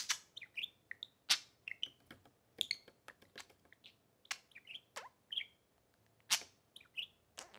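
Pet budgerigars chirping in short, scattered chirps, some gliding up or down, with several sharp clicks or taps among them.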